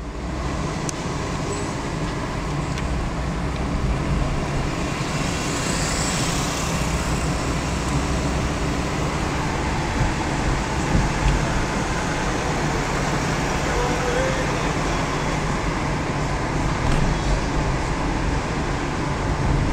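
Steady road and traffic noise of a car driving through city streets, heard from inside the cabin with a side window partly down.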